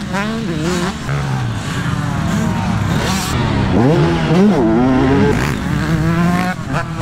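Motocross dirt bike engines revving hard, their pitch rising and falling every second or so as the throttle is opened and closed through the corners, with more than one bike heard at once around the middle.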